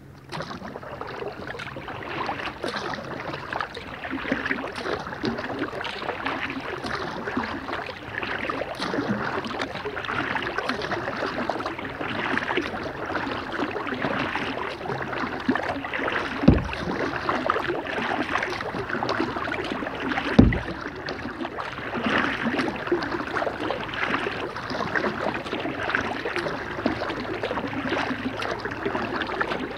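Kayak paddling: water splashing and dripping off the paddle blades with each stroke, continuous and uneven. Two dull knocks stand out a little past halfway and again about four seconds later.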